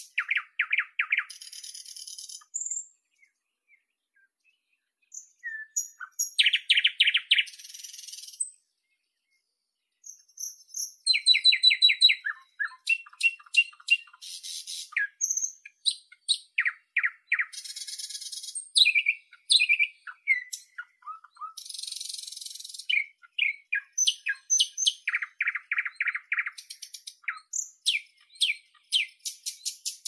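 Nightingale singing: varied phrases of rapidly repeated notes, buzzy rattles and short clear whistles. Two short pauses break the song in the first third; after that it runs almost without a break.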